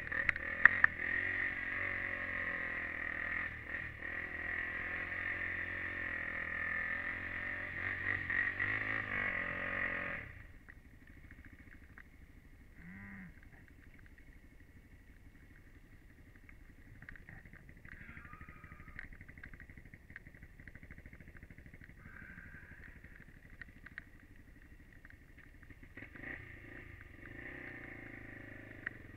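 Honda 400EX ATV's single-cylinder four-stroke engine running steadily under throttle, then dropping away sharply about ten seconds in. After that the engine is much quieter, with only faint low sound and a few small clicks.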